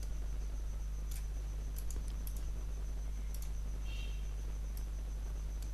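Computer mouse button clicks: several light, scattered clicks, some in quick pairs, over a steady low electrical hum.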